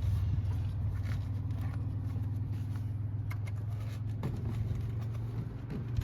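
A steady low hum, with a few faint clicks as safety wire is worked around the pins of a turbo blanket.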